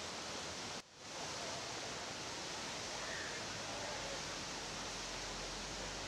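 Waterfall: a steady rush of falling water. It cuts out briefly just under a second in and fades back up.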